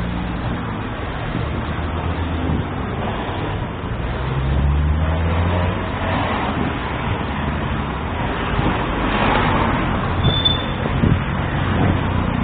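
Road traffic noise: vehicle engines running and passing in a steady rumble, with one engine's pitch climbing about four seconds in.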